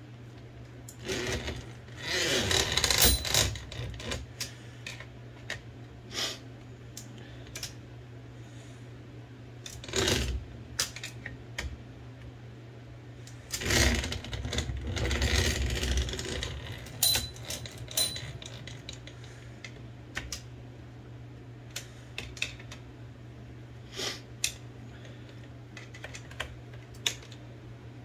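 Metallic clicking and rattling of an Olivetti Linea 98 typewriter's carriage and gears being worked by hand, in a few short bursts with single clicks between, as the guide gear that the repairer says has a problem is tested. A steady low hum sits underneath.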